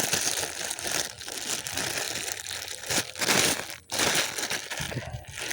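Continuous crinkling, crunching rustle, with a brief break a little before four seconds in.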